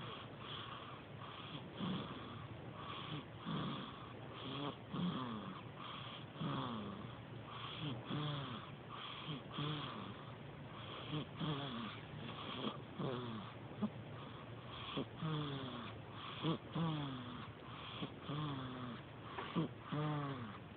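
Newborn baby, nearly a month old, snoring in her sleep: noisy breaths about once a second, many with a short tone that falls in pitch.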